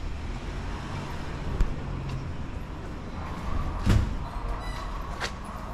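Street traffic: cars running with a steady low rumble, with a dull thump about four seconds in.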